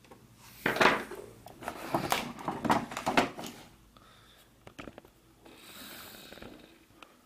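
Plastic cover panel of an all-in-one computer creaking and scraping as it is pried at with a flat screwdriver, a run of strained scrapes over about three seconds, then a few small clicks and a softer rasp.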